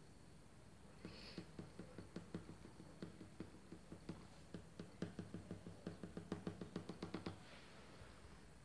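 Colored pencil tip tapping on paper, a quick series of faint taps as dots are stippled onto a drawing. The taps speed up and then stop near the end.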